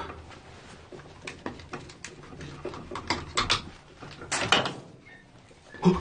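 Irregular handling noise: a gloved hand pulling at cables and pipework on a tiled wall, giving short scrapes, rustles and knocks, a few of them louder.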